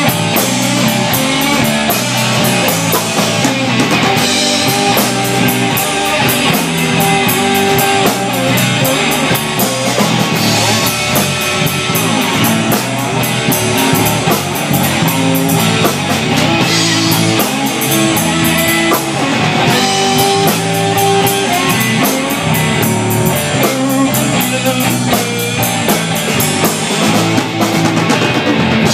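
Live blues trio playing an instrumental passage: an amplified resonator guitar leads over a drum kit and bass guitar.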